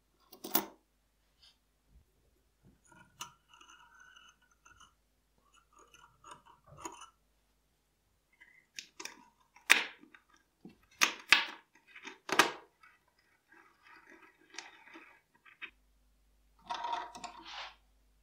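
Small steel parts of an Astra Cadix revolver's cylinder clicking and scraping as the ejector rod and its spring are fitted into the cylinder by hand. A series of sharp metal clicks, the loudest cluster about halfway through, with short rasping scrapes between them and a brief scraping rattle near the end.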